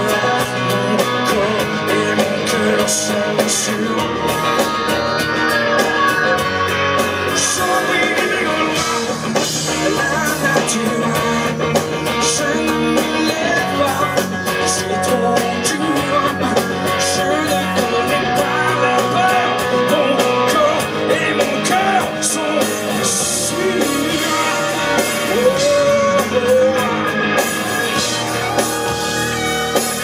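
A live rock band playing: male lead vocals over acoustic guitar, electric guitar and drums.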